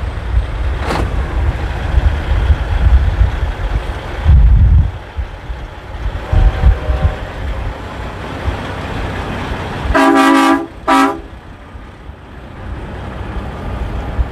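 A vehicle horn honks twice about ten seconds in, a long blast of under a second and then a short one, over a steady low rumble.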